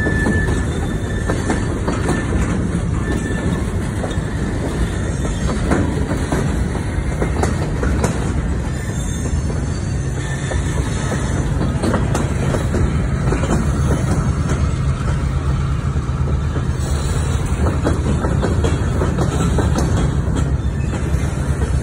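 Freight train of boxcars and covered hopper cars rolling past close by: a steady, loud rumble of the cars, with scattered clicks of steel wheels over the rail joints.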